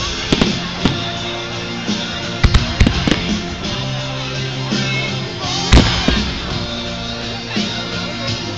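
Aerial fireworks shells bursting in a string of sharp bangs and crackles, the loudest bang about six seconds in, over steadily playing music.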